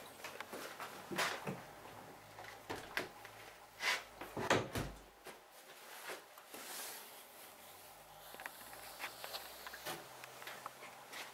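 Scattered knocks, clunks and rustles of handling in a small cluttered room. The loudest clunks come about four to four and a half seconds in, with sparser light ticks in the second half.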